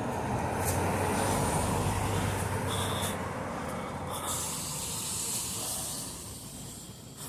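A road vehicle's engine running with a low hum and a steady hiss, loudest in the first few seconds and fading away after about six seconds.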